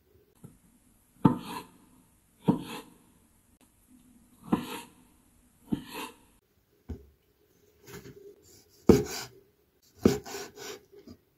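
Kitchen knife slicing avocado, then a small yellow tomato, on a wooden cutting board: about eight sharp knocks of the blade on the board, one every second or two, each followed by a short scrape.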